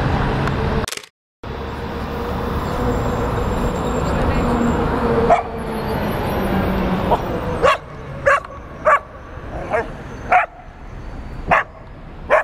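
Dogs barking at play: a run of about seven short, sharp barks in the second half, over a steady hum of street traffic earlier on.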